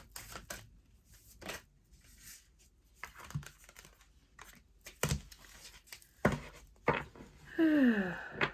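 Oracle cards being handled and shuffled: irregular papery slaps, riffles and rustles of card stock. Near the end comes a short falling hum.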